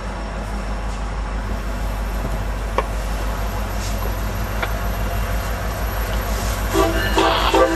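EMD SD70M-2 diesel locomotive approaching at low speed, its engine rumbling steadily and growing louder. Near the end the locomotive's air horn starts to sound in short blasts.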